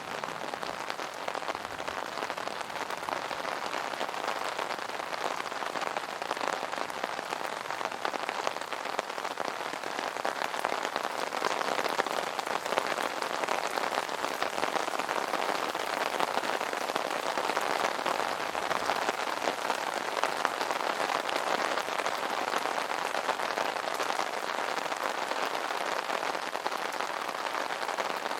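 Rain falling steadily on an umbrella canopy, a dense patter of drops with no thunder.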